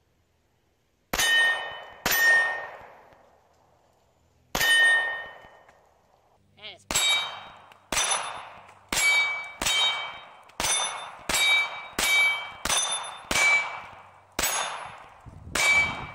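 About fourteen pistol shots from a .40 S&W semi-automatic handgun, spaced out at first and then coming roughly one a second. Each shot is followed by a steel target ringing: a lower-pitched plate for the first three hits, a higher-pitched plate for the rest.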